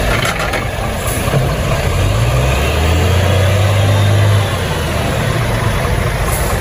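Renault tanker truck's diesel engine running as the truck drives slowly past, a steady low engine note that grows stronger for a couple of seconds around the middle and then eases.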